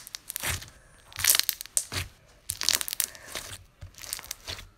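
Glittery slime being squeezed and kneaded by hand, squishing in a string of short bursts a little more than once a second.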